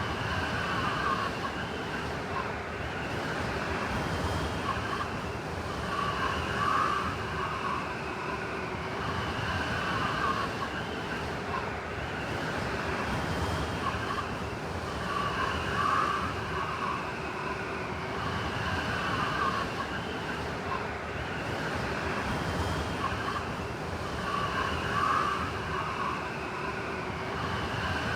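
Blizzard wind howling: a continuous rush of wind with a wavering whistle that swells and eases in gusts every few seconds.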